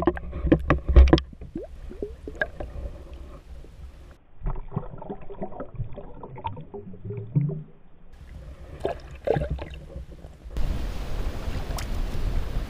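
Sloshing and gurgling water, heard muffled through an underwater camera as a chain pickerel is released by hand, with a few sharp splashes in the first second. About ten seconds in the sound opens up into steady wind buffeting the microphone above the water.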